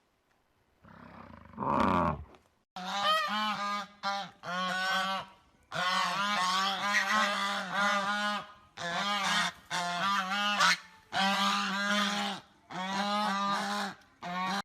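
Animal calls: a brief call about a second in, then rapid runs of short, repeated honk-like calls in several bursts with short gaps between them.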